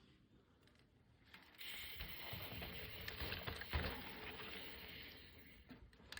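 Mountain bike rolling over a dry dirt trail: tyre and rattling noise with scattered clicks, starting about a second and a half in.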